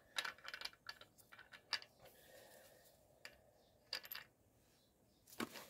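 Faint, scattered metallic clicks and taps of a socket and breaker bar on the wheel nuts as they are being loosened: a cluster in the first two seconds, then a few single clicks later.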